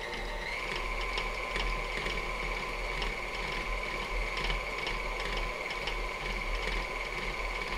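Electric stand mixer running, its flat beater churning a thick banana bread batter of creamed butter, eggs and flour in a steel bowl. A steady motor whine, stepping up a little in pitch about half a second in, with a regular clicking about twice a second.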